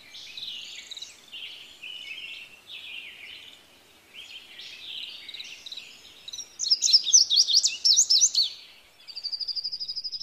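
Blue-gray tanager (azulejo común) singing: a run of squeaky, twittering chirps, with a louder burst of sharp, quick notes about two-thirds of the way in. Near the end a thin trill starts and rises steadily in pitch.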